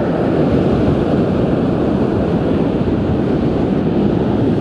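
Steady wind buffeting the camera microphone, over the rush of surf breaking on a sandy beach.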